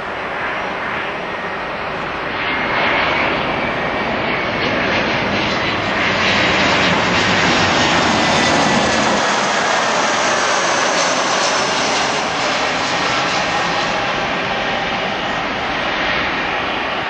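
Airbus A319-111's CFM56-5B turbofan engines on final approach, passing close by. The jet noise swells to its loudest in the middle, while a high whine falls steadily in pitch as the aircraft goes past.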